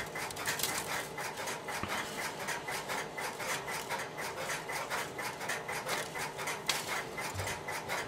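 A steady stream of short, scratchy rubbing noises as hands handle and pull the insulated conductors of a 25-pair telephone cable and work them into an AMP/Champ connector held in its termination tool.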